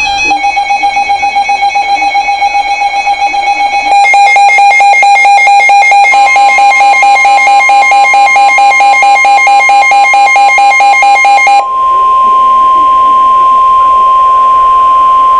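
Emergency alert alarm from a weather-alert broadcast: an electronic beep pattern pulsing about five times a second, getting louder about a third of the way in. About three-quarters of the way through it changes to one steady, loud warning tone, the weather-radio alert tone that comes before a severe thunderstorm warning message.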